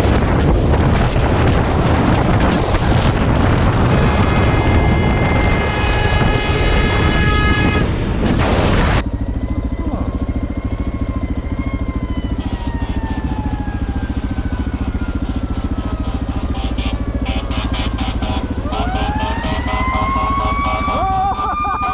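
Motorcycle riding at speed with heavy wind rush over a helmet-mounted mic. About nine seconds in it cuts to the motorcycle idling with a steady low pulse, and near the end a police siren starts winding up.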